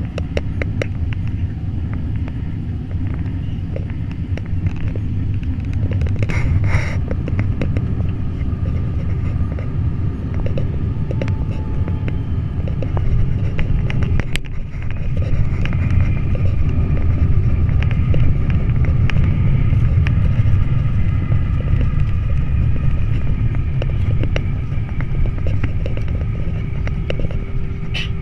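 Cabin noise of a passenger jet landing, heard through the window seat: a steady low rumble of engines and airflow on final approach, a sharp knock about halfway through as the wheels touch the runway, then a louder rolling rumble with a faint steady whine as the aircraft decelerates on the runway.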